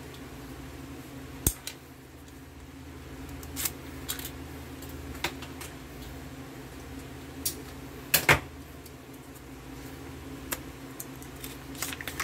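A knife being used to cut open a stubborn plastic ration packet, with the packaging handled: scattered sharp clicks and snaps, the loudest pair a little past the middle.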